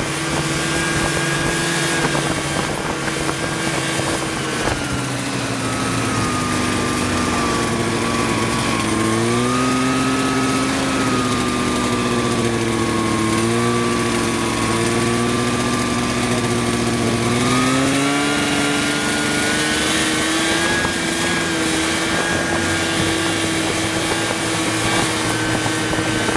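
A vehicle engine running steadily under load, its pitch dropping as it slows about a third of the way in and rising again as it speeds up about two-thirds through.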